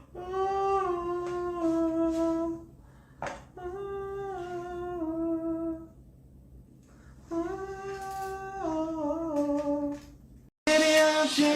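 A person humming a short tune in three phrases, each a long held note that steps down in pitch, with short pauses between them. Near the end it cuts abruptly to louder music with singing.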